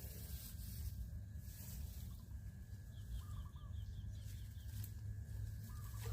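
A chicken clucking a few times in the middle and near the end, with a run of small high bird chirps, over a steady low rumble.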